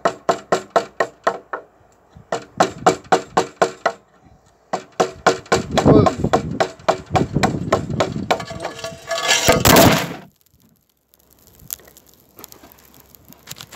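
A chisel being struck with a hammer in quick runs of sharp taps, about five a second, cutting a notch into a wooden beam. About ten seconds in comes a loud crash as the camera falls over, and the sound cuts off suddenly.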